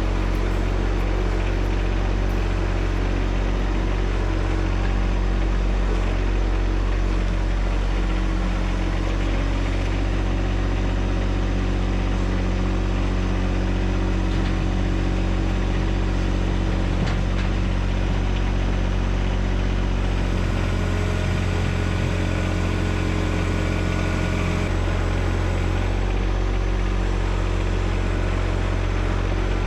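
John Deere 1025R subcompact tractor's three-cylinder diesel engine running steadily, its note shifting briefly about two-thirds of the way through.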